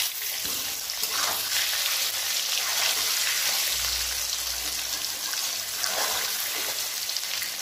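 Whole boiled potatoes sizzling steadily as they fry in refined oil in a metal kadai. They are turned with a metal spatula that scrapes against the pan a few times.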